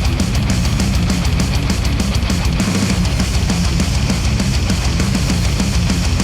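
Heavy rock music with electric guitar and a fast, steady drumbeat, played back through an Aune AR5000 headphone and picked up by microphones.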